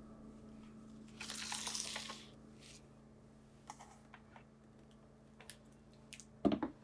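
Kitchen prep handling sounds: a short rustle about a second in, then scattered light clicks and a louder knock near the end, over a faint steady hum.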